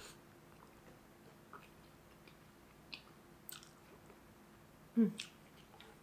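A person chewing and biting into soft food, eggs in tomato sauce with pita bread, with small wet mouth clicks. About five seconds in there is a short, low vocal sound that drops in pitch.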